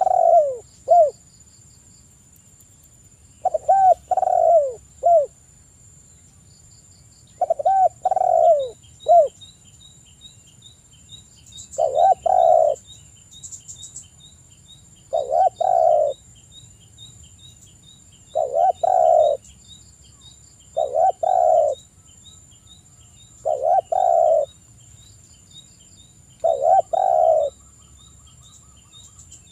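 Spotted dove cooing: a low phrase of two or three coos about every three seconds, nine phrases in all.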